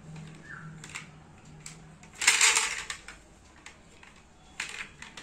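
Plastic toy pieces clicking and rattling as a child handles a plastic shape-sorter toy: a few light clicks, one louder rattle about two seconds in, and another clack near the end.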